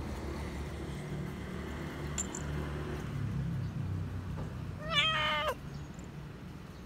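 Domestic cat giving one short meow about five seconds in, over a low background hum.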